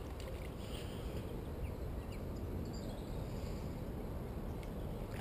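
Steady low rumbling noise with a few faint light ticks.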